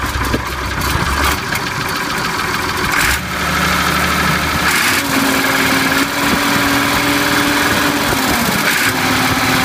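Perkins diesel engine of a Claas Dominator 86 combine harvester running, its pitch stepping up about three seconds in and again about five seconds in.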